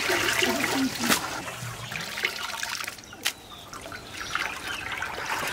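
Water splashing and trickling as raw chicken meat is washed by hand in a large aluminium pot of water and lifted out, dripping, into a plastic colander. Two sharp knocks, about a second in and a little after three seconds.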